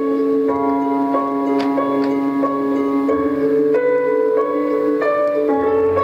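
Music for a dance piece: a slow melody of separate ringing notes, about two a second, over a steady held drone.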